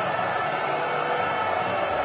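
Background music: a dense, steady wash of sustained tones with no clear beat.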